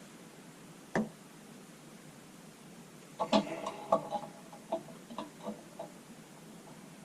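A single knock about a second in, then a run of light clinks and taps with brief metallic ringing between about three and six seconds in: hard fittings being handled and set against each other during a sink and drain install.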